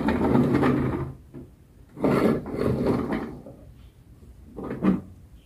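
Plastic toy truck pushed across a tabletop, its plastic wheels rolling and rumbling in two long pushes, then a shorter push that ends in a sharp knock near the end.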